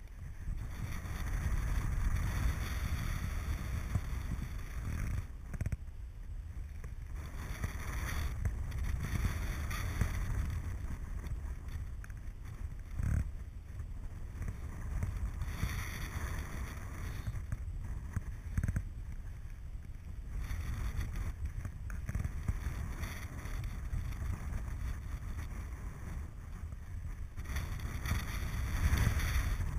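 Airflow rushing over the microphone of a camera on a flying paraglider pilot, buffeting and rising and falling in gusts.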